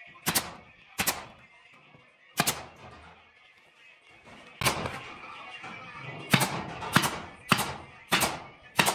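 Pneumatic nail gun firing nails into a wooden cabinet panel, about nine sharp shots, a few seconds apart at first, then coming about every half second in the second half.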